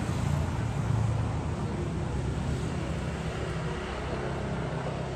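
Steady low rumble of outdoor background noise, with a fainter hiss above it and no distinct separate sounds.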